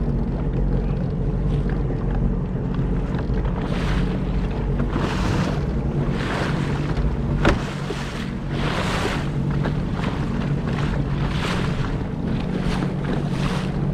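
Sea-Doo FishPro jet ski engine running steadily while under way, with water splashing along the hull in surges about once a second and wind on the microphone.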